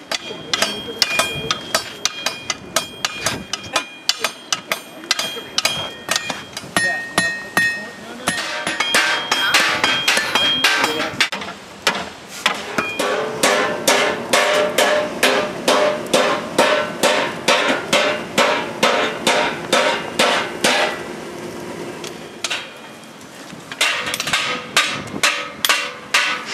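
Blacksmith's hammer striking steel on an anvil in a steady rhythm of about two blows a second, the metal ringing after many of the blows; the blows ease off for a few seconds near the end, then resume.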